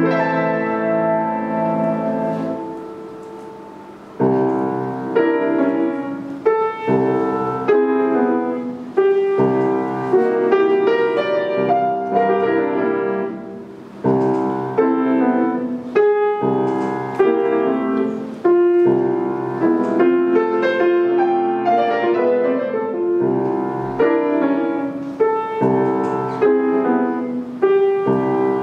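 Estonia grand piano played solo, with a full, ringing sound. A held chord dies away about two to four seconds in, then the playing resumes with a strong chord and runs on in dense, busy passages, easing briefly once more near the middle.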